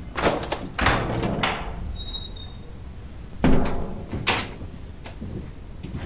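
A prison cell door being unlocked and opened: a cluster of sharp clanks and rattles, a brief squeak about two seconds in, then two more clanks about three and a half seconds in.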